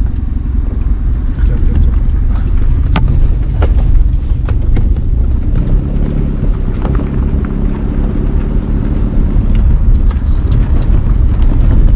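Car engine running under load as it crawls over a rough, rocky track, with a steady low rumble and scattered sharp knocks and rattles as stones strike the car's underside.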